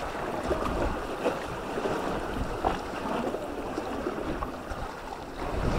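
Sea water washing and sloshing around concrete tetrapods at the foot of a breakwater, as a steady rushing wash with a few small splashes. Under it is a low, uneven rumble of wind on the microphone.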